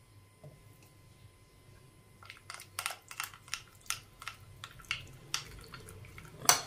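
Metal spoon stirring a thick mayonnaise sauce in a ridged glass bowl, ticking and scraping against the glass with wet squishes. The clicks start about two seconds in and come irregularly, two or three a second.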